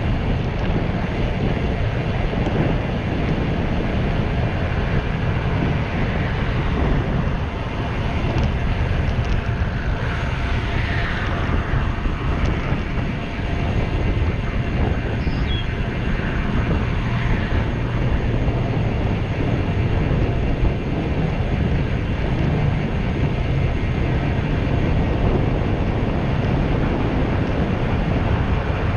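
Steady wind rush on a GoPro camera's microphone from a road bicycle ridden at speed, with the rolling noise of the bike on the pavement.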